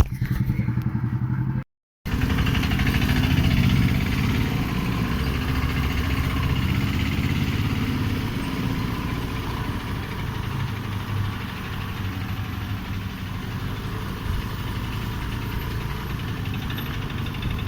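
A motor vehicle's engine running steadily, with road noise, as if heard on board while travelling. About two seconds in there is a brief silent break in the sound.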